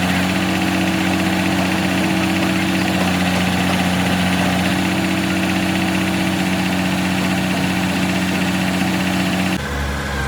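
Excavator diesel engine running steadily at idle with a constant hum. Just before the end it cuts abruptly to a different, lower engine sound.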